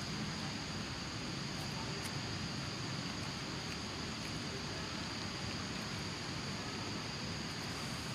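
Insects droning steadily on one high pitch, over a constant hiss.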